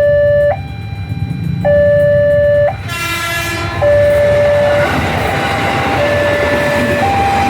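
Railway level-crossing warning siren sounding two alternating electronic tones, each held about a second. About three seconds in, a train horn sounds once for about a second, and from about five seconds on the running noise of a train builds under the siren.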